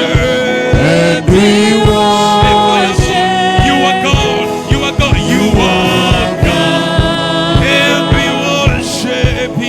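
Gospel worship music: singing over an instrumental backing with a steady beat of about two strokes a second.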